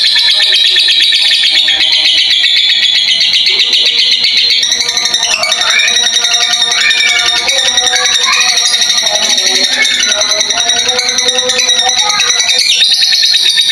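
Blue masked lovebird chattering in one long unbroken run of rapid, high-pitched notes, with lower warbling notes mixed in through the middle.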